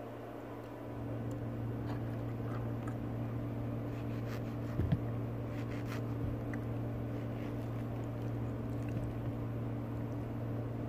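A steady low machine hum that gets louder about a second in, with a few light clicks near the middle as a small knife cuts slices from a peeled mango over a plastic plate.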